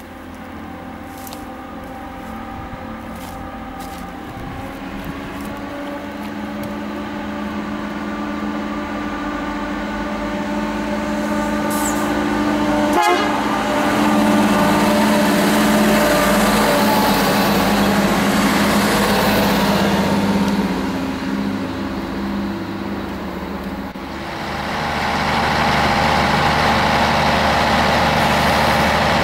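MAN 2000 diesel-hydraulic multiple unit's diesel engines running as the train pulls away and passes close, growing steadily louder for about half the time and then staying loud, with one sharp knock about halfway. Near the end the sound switches to another stretch of steady train running noise.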